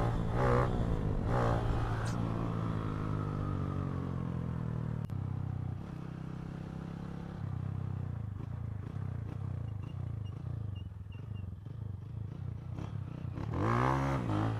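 Honda Titan 160's single-cylinder motorcycle engine under way, its revs rising and falling near the start. It runs steadier through the middle, then gives another rise and fall in revs near the end.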